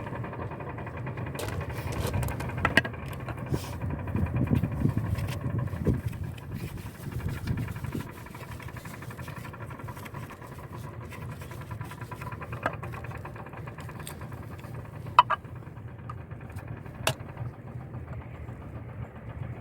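A steady motor-like hum, louder for the first several seconds and then easing, with a few sharp clicks as PVC pipe fittings are handled.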